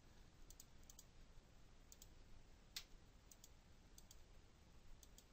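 Faint clicking of computer input as digits are keyed into an on-screen TI-84 Plus calculator: about a dozen short clicks at irregular spacing, many in close pairs, the strongest a little before the three-second mark.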